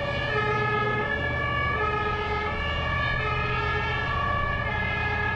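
Fire engine's two-tone siren (German Martinshorn) sounding on an emergency run, its two pitches alternating steadily, over the truck's engine running.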